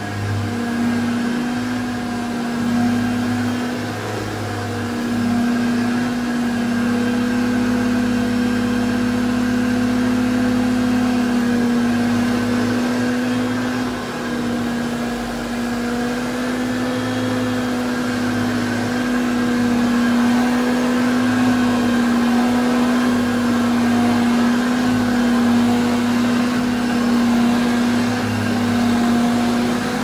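A 1981 Hoover Concept 1 Powerdrive upright vacuum cleaner (model U3103) running with a steady motor hum, getting a little louder after about six seconds as it comes closer.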